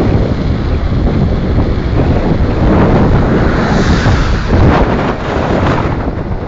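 Loud wind buffeting the microphone while moving along a road. About four seconds in, a passing car's tyre hiss swells and fades.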